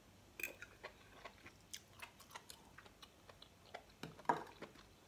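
A person chewing a mouthful of cooked hedgehog mushrooms (rimsopp) close to the microphone: soft, irregular wet clicks and smacks of the mouth, with one louder mouth sound about four seconds in.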